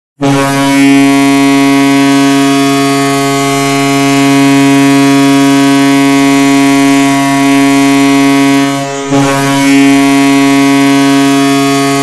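Tampa Bay Lightning goal horn sounding: a deep, steady ship-style horn blast held for about nine seconds, a brief break, then a second long blast.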